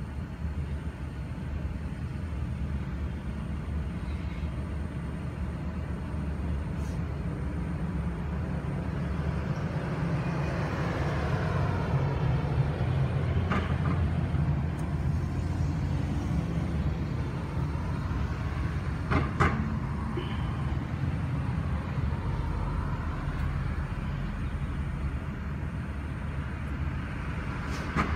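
Steady low rumble of road traffic, with vehicles swelling past several times and two sharp clicks, about 13 and 19 seconds in.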